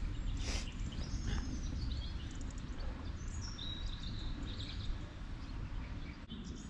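Small birds chirping in short calls several times over a low steady rumble, with a brief rustle about half a second in.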